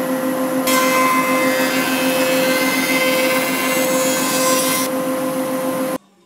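Stationary drum sander running with a steady motor hum. From about a second in until about a second before the end, a harsher hiss rises over it as the end-grain board is sanded. The sound cuts off suddenly near the end.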